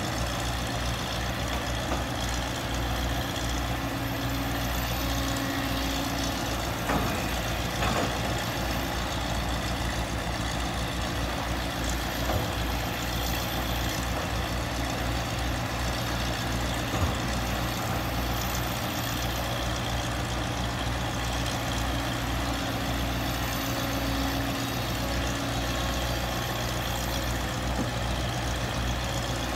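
Heavy diesel engines running steadily: the pump engine of a floating sand-dredging barge and a tracked excavator digging beside it, a continuous low hum with a few short knocks.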